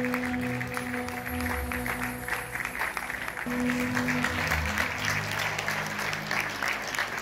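Audience applauding over live music with held notes and a low bass line; the music stops near the end while the clapping continues.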